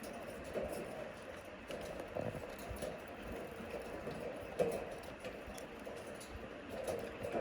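Budgerigars chattering softly in a run of short, irregular calls.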